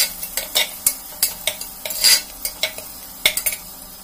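A metal ladle scrapes and clinks against the inside of a pressure cooker as sliced onions, green chillies and curry leaves are stirred in sizzling butter and oil, being fried until they brown. The strokes come irregularly, a few a second, and stop about three and a half seconds in, leaving the frying sizzle.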